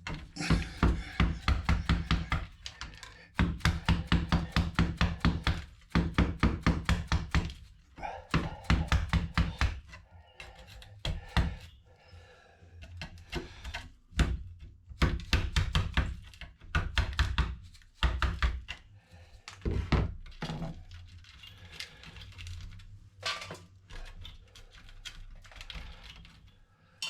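Hand tool knocking against a motherboard's CPU socket as it is worked loose, in quick runs of sharp knocks about five a second. The knocks turn sparser and irregular in the second half.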